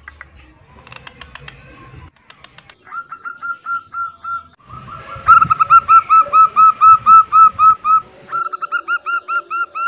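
Female zebra dove (perkutut) giving its breeding call to draw males. A few spaced, soft notes come first, then from about halfway a loud fast run of short cooing notes, about four a second, broken once by a brief pause near the end.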